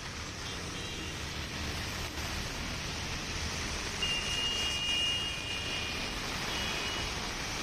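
Steady hiss of heavy rain and traffic driving through a flooded road, with a few brief high-pitched tones, the longest about four seconds in.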